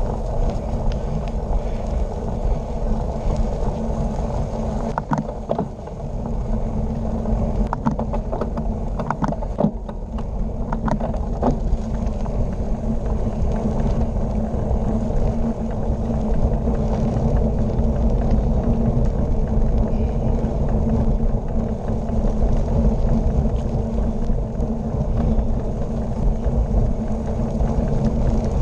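Steady wind and road noise on a bicycle's handlebar-mounted action camera as the bike rolls along at speed, with a few brief clicks and rattles several seconds in.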